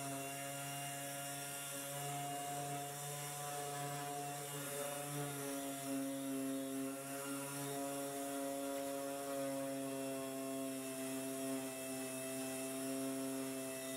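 Orbital sander running steadily as it sands fiberglass filler on a Jeep CJ7's steel tub, a droning motor hum whose pitch shifts slightly a few times.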